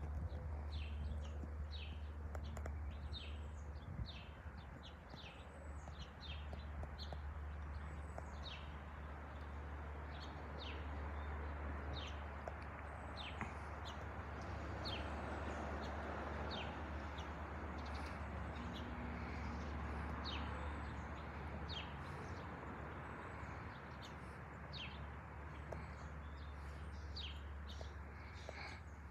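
Small birds chirping over and over, short dropping chirps about once or twice a second, over a steady low rumble that swells in the middle, the distant sound of an Airbus A220-300 jet airliner passing high overhead.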